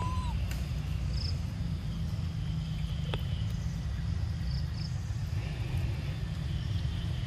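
A steady low rumble throughout, with faint brief high chirps and one sharp click about three seconds in.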